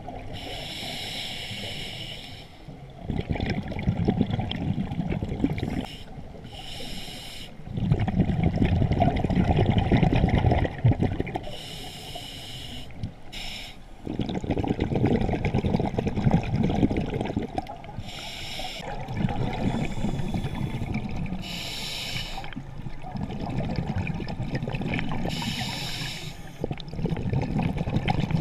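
A scuba diver breathing through a demand regulator underwater. Each short hissing inhale, about every four to six seconds, is followed by a longer, louder bubbling exhale.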